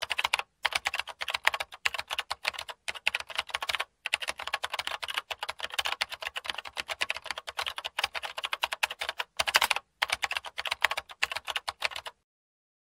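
Computer keyboard typing: a rapid stream of key clicks with a few brief pauses, stopping abruptly near the end, as text is typed out on screen.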